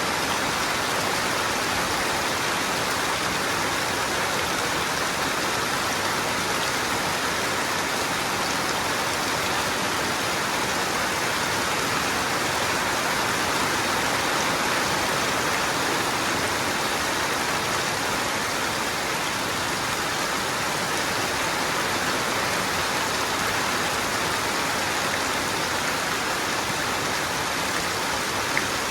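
Steady rain, with rainwater running off the roof of a house. One small knock or drip stands out near the end.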